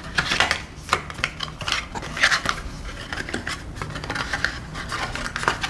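Stiff paperboard card being folded and slotted together by hand: a run of crisp rustles, scrapes and light taps.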